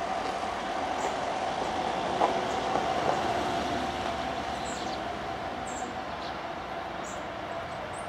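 A steady mechanical drone with a held mid-pitched tone, swelling slightly and then easing, with two sharp taps about a second apart and a few short, high bird chirps over it.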